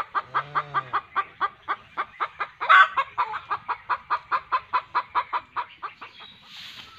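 Hen clucking in a long, rapid run of short clucks, about five a second, with one louder squawk about three seconds in. The clucking stops shortly before the end.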